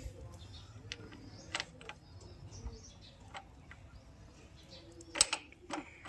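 Light metallic clicks and taps as a greased motorcycle front sprocket is handled and slid by hand onto the engine's output shaft. A sharper click comes about five seconds in.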